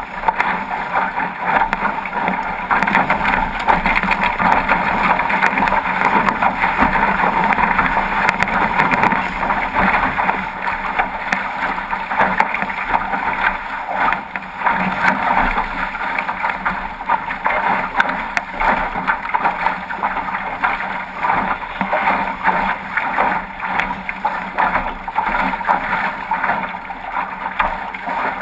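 Steady rush of wind on the microphone and water streaming and splashing past the hull of a 505 racing dinghy sailing fast, with spray coming off the bow.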